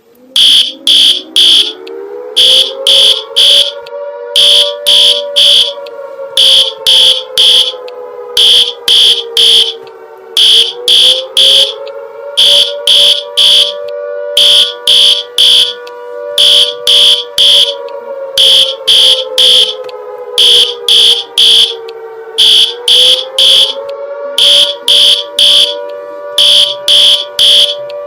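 Emergency-alert-style electronic alarm. Loud, high-pitched beeps come in groups of three, about every two seconds. Beneath them a lower siren tone slowly rises, then sags, and jumps back up to start again about every eleven to twelve seconds.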